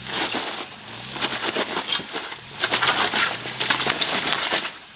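Loud crunching and grinding of rock under a 2009 Toyota Tacoma as it crawls over a boulder: its tyres and underbody scrape and crush stone in a dense run of cracks. The engine's low hum runs underneath.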